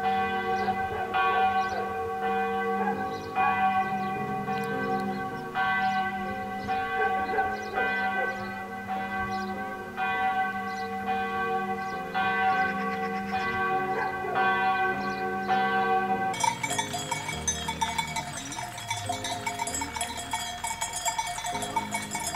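Church bells ringing, several bells of different pitch striking in turn with long ringing tones. About sixteen seconds in this gives way to a brighter, denser ringing.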